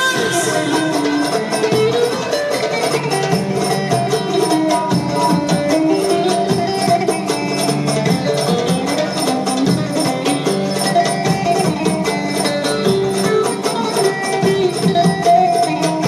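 Live Turkish folk music: a melody played over a steady, quick percussion beat.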